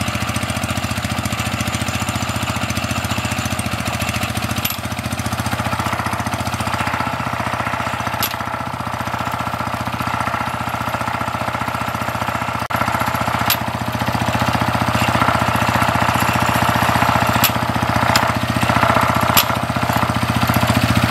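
A small engine running steadily with an even, fast pulse, with a few sharp metal clicks from hand tools on the shaft fittings.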